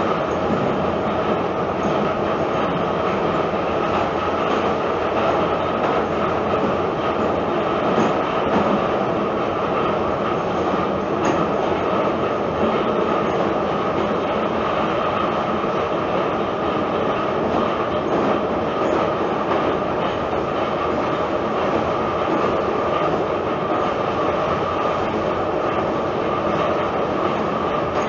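Tbilisi Metro train running between stations, heard from inside the car: a steady, unbroken rumble and rail noise.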